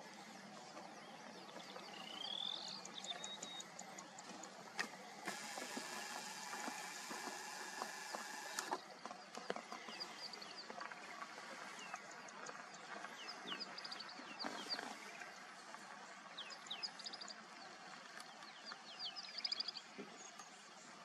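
Outdoor bushveld ambience: a steady background hiss with many short, high bird chirps throughout. A buzzing, pitched tone starts about five seconds in and cuts off sharply some three seconds later.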